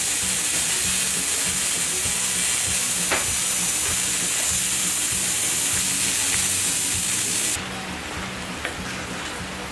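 Electric bug zapper shorting out in the rain, giving a loud, steady, crackling buzz that cuts off suddenly about three-quarters of the way in. Rain patters underneath.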